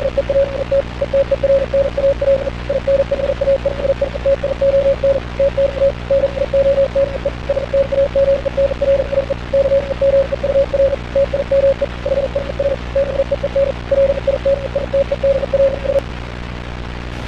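A single mid-pitched beep tone keyed rapidly on and off in irregular groups, like Morse code, over a steady radio hiss and hum. The beeping stops near the end, leaving the hiss.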